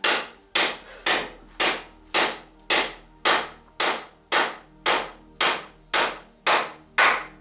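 Hammer driving nails into the wooden battens of a stud frame: about fourteen even blows, close to two a second.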